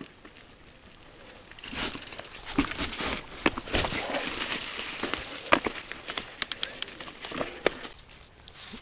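YT Jeffsy 29er mountain bike rolling along a forest trail, its tyres crackling over dry leaves, twigs and patches of snow, with many sharp clicks and knocks. It starts about one and a half seconds in and fades near the end.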